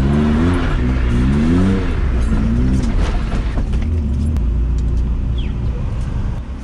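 BMW E36's M52 2.8 stroker straight-six heard from inside the cabin, its revs rising and falling a few times in the first three seconds, then running on as a steady low rumble while the car rolls slowly.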